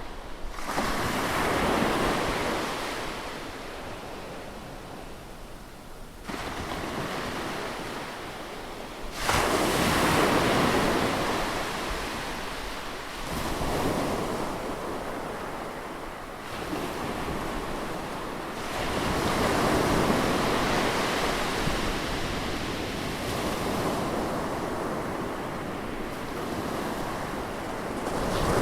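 Ocean waves breaking on a beach one after another: each one swells into a rush of surf and dies away, several times in turn.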